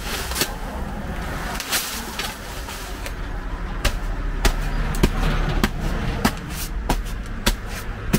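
A series of sharp knocks, one every half second to a second, over a steady low rumble.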